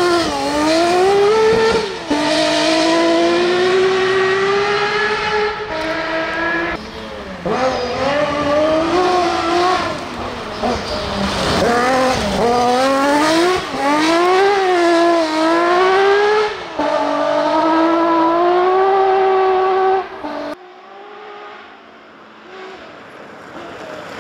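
Lancia Stratos rally car's engine at high revs, its pitch climbing and then dropping again and again as it shifts through the gears and lifts off the throttle. Near the end the sound drops suddenly to a much quieter, more distant engine.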